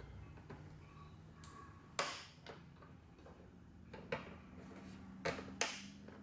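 Plastic retaining clips on a Honda Civic's windshield cowl panel snapping loose as they are popped out by hand: four sharp clicks, one about two seconds in, one around four seconds and two in quick succession near the end.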